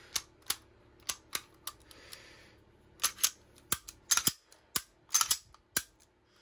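Steyr M9-A1 pistol being function-checked after reassembly: a series of sharp metallic clicks and clacks as the slide is worked and the striker is dry-fired, several of them in quick pairs.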